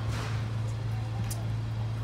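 A steady low hum under faint, distant voices, with one brief high click just over a second in.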